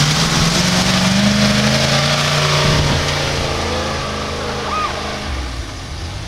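Off-road 4x4 truck's engine pulling hard at high revs as it climbs a snowy hill, holding steady and then fading as the truck moves away, over a steady hiss.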